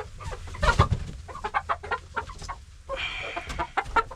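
Young backyard hens clucking in short, repeated calls, with a loud thump a little under a second in.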